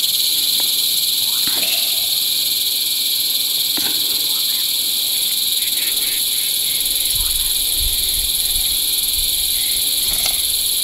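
Insects chirring steadily: a loud, continuous high-pitched drone in several layered bands, with a few faint clicks and knocks.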